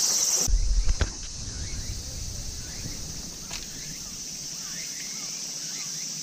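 Steady high chirring of an insect chorus, crickets by the sound of it, with a brief low rumble and a single knock about a second in. Faint short chirps sound in the background.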